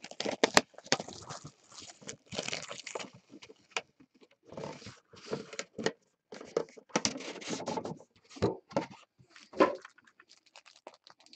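Cardboard packaging of a trading-card case being handled and opened: a cardboard sleeve is slid off a box. The sound is irregular scraping and rustling of cardboard, with short taps as boxes are set down.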